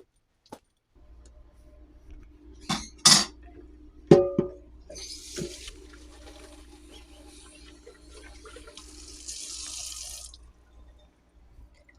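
A few knocks and a ringing clang of a metal pot, then a kitchen tap running for about five seconds before it is shut off.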